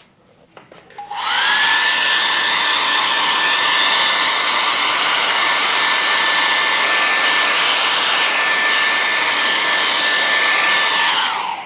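Handheld hair dryer drying wet watercolour paint. It is switched on about a second in, its motor whine rising quickly to a steady pitch over the rush of air, then switched off near the end with the whine falling away.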